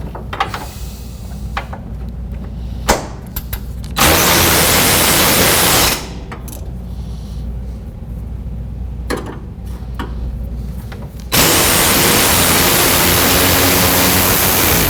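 Power tool running in two bursts, about two seconds and then about three and a half seconds, a loud even hiss, as it turns out the bolts that hold the shimmed front-end part. Light clicks and knocks of tool and parts handling fall between the bursts.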